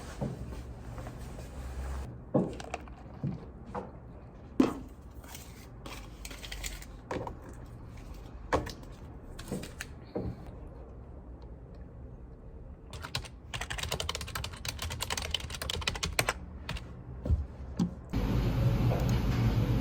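Scattered light clicks and taps, with a run of rapid clicking like typing on a computer keyboard about two-thirds of the way in. Near the end the sound cuts abruptly to a louder steady low hum.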